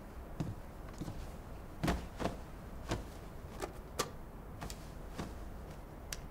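Footsteps across a room, followed by a string of light knocks and taps from objects being handled and set down, unevenly spaced.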